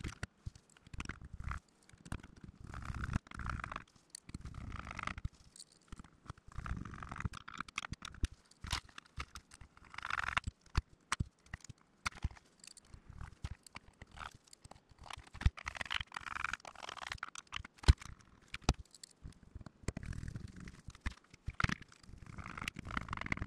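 Hands assembling an RC nitro buggy: the radio tray and fuel tank being fitted onto the chassis and screws turned with a hex screwdriver, giving scattered sharp clicks and taps between bouts of scraping.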